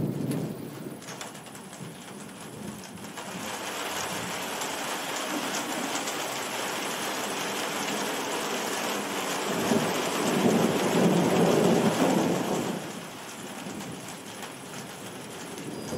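Thunderstorm: steady rain hissing, growing heavier a few seconds in, under rolling thunder that swells into a long low rumble, loudest from about ten seconds in to about thirteen.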